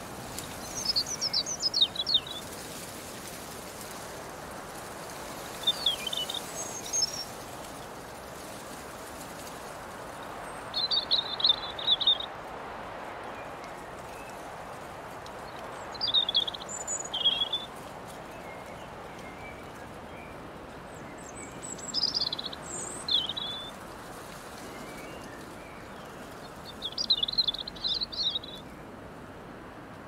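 Steady breeze through grass and leaves, with a songbird singing short, high-pitched phrases about every five seconds, six in all.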